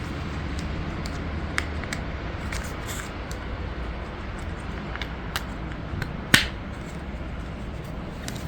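Scattered light clicks and taps of plastic toy track and car parts being handled, with one sharper click about six seconds in.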